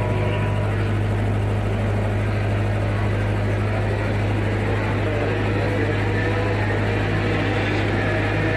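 A steady low mechanical drone, like a distant engine, holding one unchanging hum with a rushing noise over it. No vehicle passes close by.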